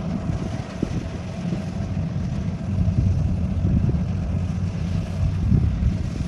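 Farm machine's engine running steadily, a continuous low hum.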